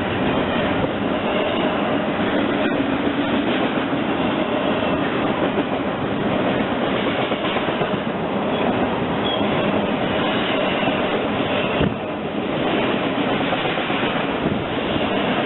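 CSX intermodal freight train passing: the steady din of steel wheels rolling on the rail, with a couple of sharp clicks from the wheels crossing rail joints.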